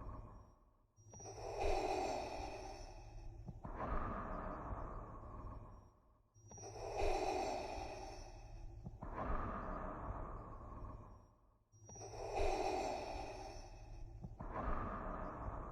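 Darth Vader's mechanical respirator breathing: slow, regular in-and-out breaths through the mask, one full cycle about every five seconds, each cycle ending in a brief silent pause, three cycles in all. A low steady hum runs beneath.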